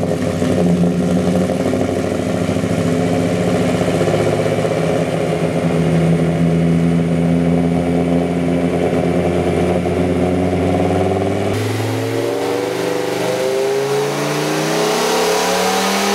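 Dodge Ram SRT-10's newly rebuilt 8.3-litre V10 with long-tube headers and Cherry Bomb Vortex mufflers running on a chassis dyno: a steady drone at constant speed, then after a cut about eleven seconds in, the revs climb steadily through a pull.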